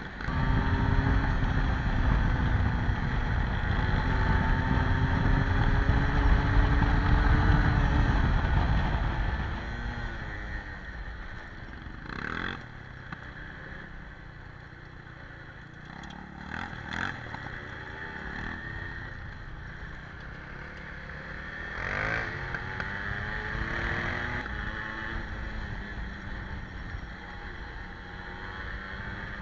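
Honda XL 600 motorcycle engine heard from on board, pulling hard with rising pitch and heavy rumble for the first nine seconds, then running more quietly at low revs. A few brief sharp clatters come through in the quieter stretch as the bike rides a rough dirt track.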